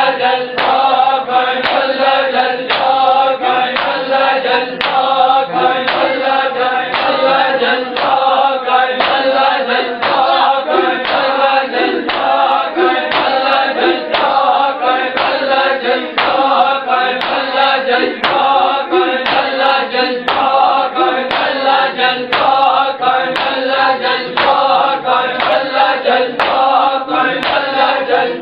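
A group of mourners chanting a noha together, with sharp rhythmic slaps of matam (chest-beating) keeping time at about two beats a second.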